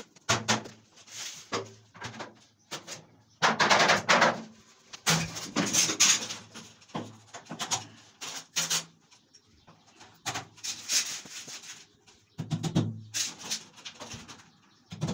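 PVC wall panels being handled and fitted: irregular bursts of scraping and rubbing plastic, with short knocks in between.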